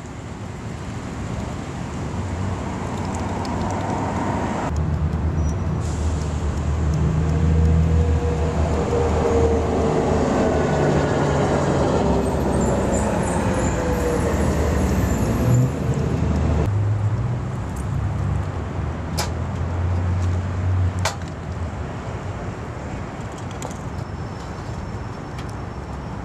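A road vehicle passing: its noise swells to a peak and fades over several seconds, over a low outdoor rumble. Two sharp clicks come later on.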